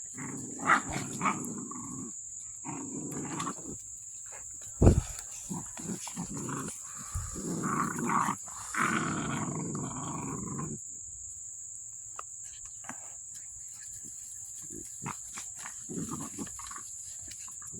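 American bully puppies growling as they play-fight, in rough bouts that die down about eleven seconds in. A single sharp knock about five seconds in is the loudest sound.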